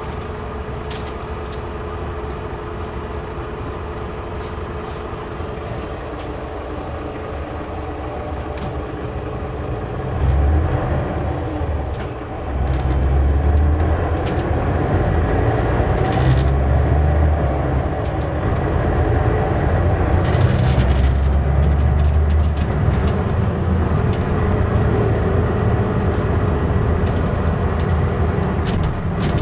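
Inside a Mercedes-Benz O560 Intouro bus: the diesel engine runs steadily at a stop, then about ten seconds in the bus pulls away. The engine grows louder and deeper, with a short dip about two seconds later, and small cabin rattles and clicks run throughout.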